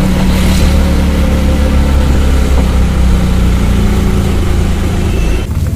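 A motor vehicle's engine running close by: a loud, steady low hum with street noise over it.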